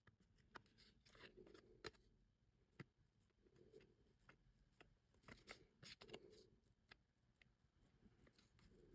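Near silence, with faint scattered taps and light rustles as a paper tag's edge is pressed into an ink pad again and again.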